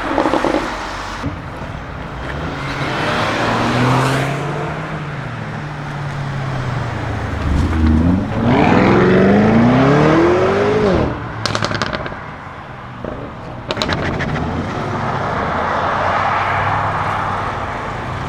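Lamborghini Urus Performante's twin-turbo V8 through its Akrapovic exhaust. Its revs rise and fall at first, then climb steeply under hard acceleration about halfway through, which is the loudest part. Two short bursts of exhaust crackles and pops follow as the throttle closes.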